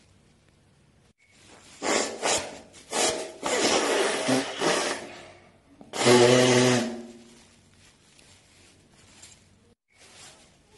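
A person blowing their nose into a tissue. About two seconds in come a few short blows, then a longer rushing blow, and about six seconds in the loudest one, a honking blow that trails off.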